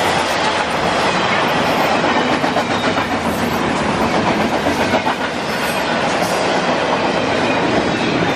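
Double-stack container train passing close by: the steady rumble and rattle of steel wheels on rail, with a clickety-clack of wheels clicking over the track.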